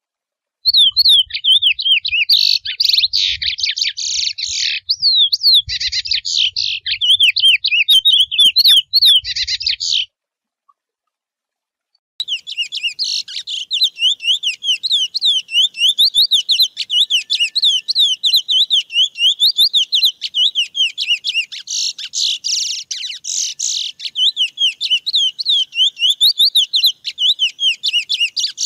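Chestnut-bellied seed finch (curió) singing a fast, warbling wild-type 'mateiro' song of quick rising and falling notes. The song breaks off about ten seconds in and starts again after a pause of about two seconds.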